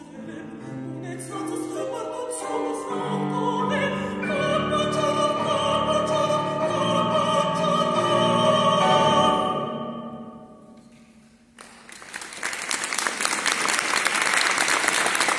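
A mezzo-soprano sings with grand piano accompaniment, growing louder to a strong held final phrase that ends about ten seconds in. The hall rings briefly as it fades, and then the audience breaks into applause.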